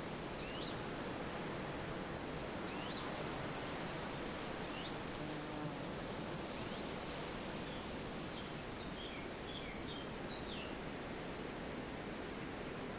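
Steady forest wind noise with a bird giving short rising chirps every couple of seconds, breaking into a quick flurry of chirps in the second half. A faint steady high insect drone runs underneath.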